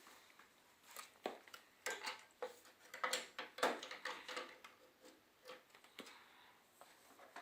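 Light clicks and clatter of hard disk drives being handled and snapped into the drive bays of a desktop computer case, about a dozen separate knocks spread irregularly.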